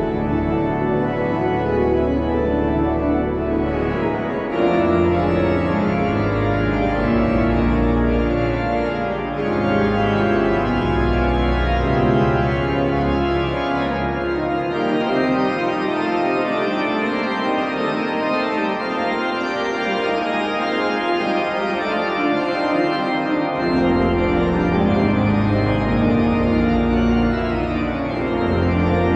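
Blackburn Cathedral's pipe organ playing loud, sustained full chords. The deep pedal bass drops out for about ten seconds in the middle, then comes back in.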